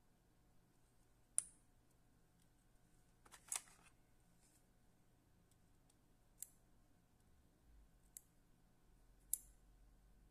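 Small fly-tying scissors snipping and clicking: five short, sharp clicks spaced a second or two apart, with a quick double snip near three and a half seconds, over near silence.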